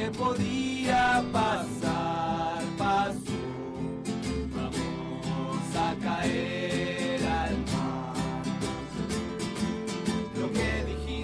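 Acoustic guitar strummed in a small live acoustic set, with a voice singing a melody over it.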